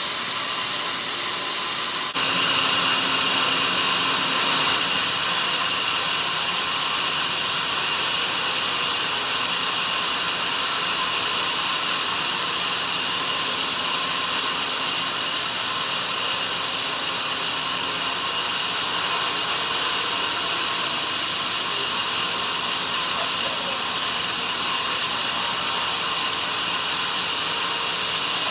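Sawmill band saw cutting through a log, a steady hissing, rasping saw noise that grows louder about two seconds in and then holds.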